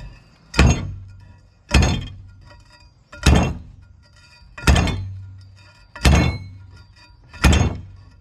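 A long metal pipe slammed down again and again over an upright axle shaft, driving a new wheel bearing onto it: six heavy metal impacts about every second and a half, each ringing out as it fades.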